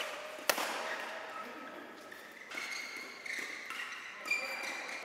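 Badminton racket hitting a shuttlecock during a rally: one sharp crack about half a second in, then lighter hits a second or so apart.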